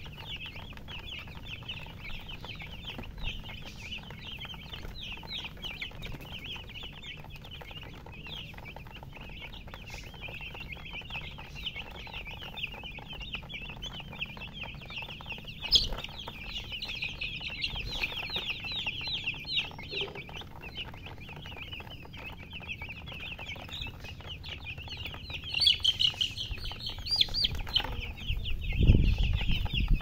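A flock of young domestic chicks peeping non-stop, many short high-pitched cheeps overlapping, growing louder and busier near the end. A single sharp knock about halfway through and a low thump just before the end.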